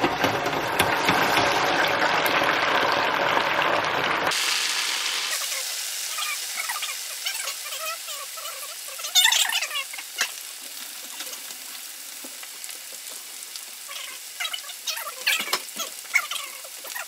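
Wet, freshly cut potato strips deep-frying in oil at about 325°F, the oil bubbling and sizzling hard as the potatoes' moisture boils off. The sound is loudest for the first four seconds, then drops suddenly to a lighter crackling sizzle with scattered pops.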